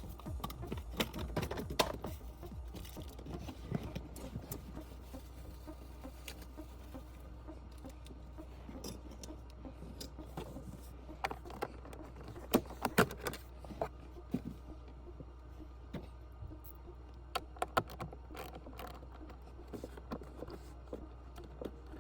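Irregular small clicks and rattles of hands handling plastic dashboard trim, speaker parts and wiring, with a few sharper clicks, over a steady low hum.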